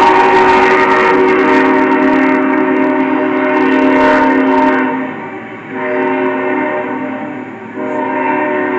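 Union Pacific diesel locomotive's multi-note air horn blowing for a grade crossing: a long blast that cuts off about five and a half seconds in, a second blast, then a third starting near the end.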